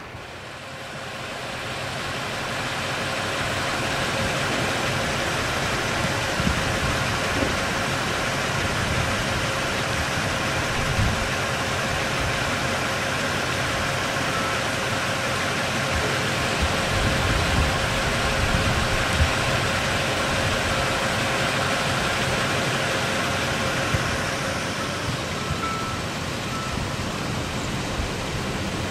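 Steady road traffic noise, swelling slightly about two-thirds of the way through as vehicles pass.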